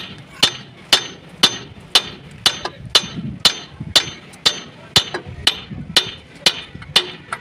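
Steady hammer blows on metal, about two strikes a second, each a sharp ringing clank, struck at a truck's lift-axle bracket while its bush is being replaced.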